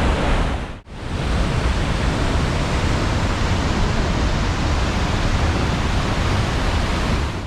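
Flooded waterfall at full flow: a loud, steady rush of falling water, close up. It drops out for a moment about a second in, then carries on unchanged.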